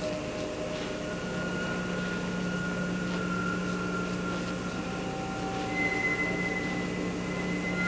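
Electronic drone music: several held, steady tones layered over a low hum, with a new higher tone entering about six seconds in.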